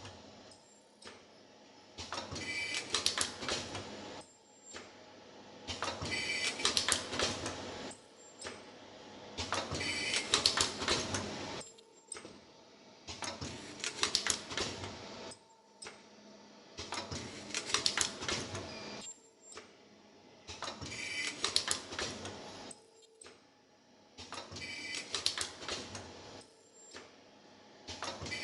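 Automatic metal zipper film welding machine running through repeated cycles: a clattering, mechanical burst of about two seconds comes roughly every four seconds, with quieter pauses between.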